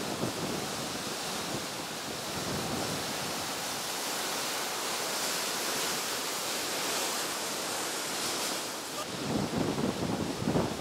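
Steady rushing of wind and surf. Near the end, gusts buffet the microphone in low rumbles.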